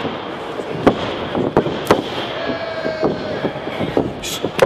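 Pro wrestling strikes landing as sharp, irregular smacks, several in a few seconds, over steady crowd noise.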